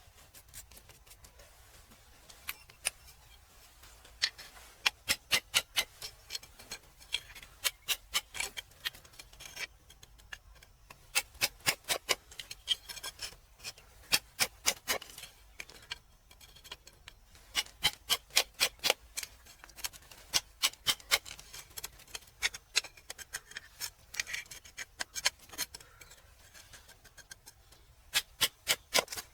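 Runs of sharp taps or clicks, about four or five a second, with short pauses between the runs.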